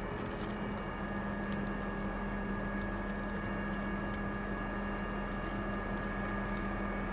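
Crane engine running steadily: an even low hum with a few faint clicks.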